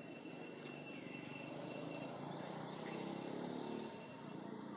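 Outdoor ambience: steady high-pitched insect drone, with a low rumble that swells in the middle and fades near the end.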